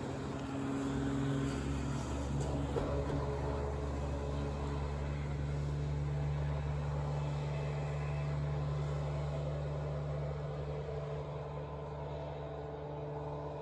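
Motorboat engine running at a steady speed out on the water, a constant low drone.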